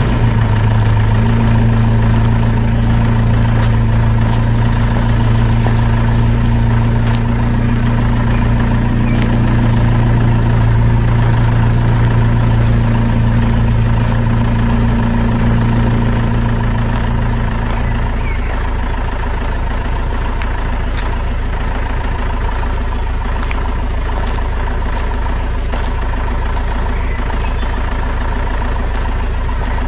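Heavy truck engine idling steadily with a low, even hum; the hum weakens about eighteen seconds in, leaving a steady rumble.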